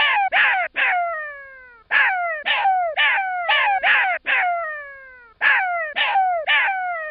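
An animal's rapid series of harsh calls in bursts of three, six and three, each call sliding down in pitch.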